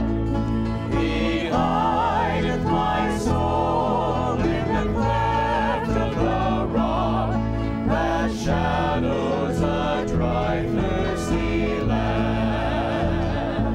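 Mixed group of voices singing a gospel hymn together in harmony, with held notes, accompanied by strummed acoustic guitar and mandolin.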